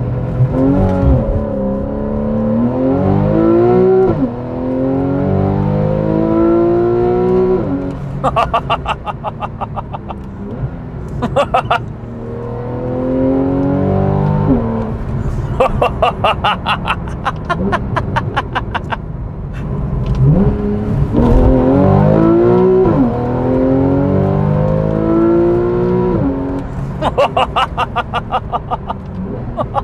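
A Porsche 911 991.1 Carrera's 3.4-litre naturally aspirated flat-six, heard from inside the cabin with the sport exhaust valves open, pulls hard from launch control three times. Each run climbs steeply in pitch, drops suddenly at a quick PDK upshift, then climbs again. Between the runs come stretches of rapid, evenly spaced pulsing sounds.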